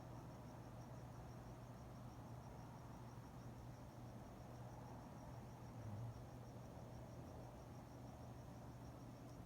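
Crickets chirping faintly in an even, steady rhythm, over a low steady hum.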